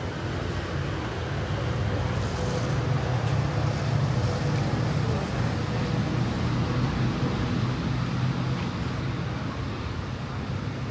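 Low engine rumble that builds over the first few seconds, is loudest around the middle, and slowly eases off.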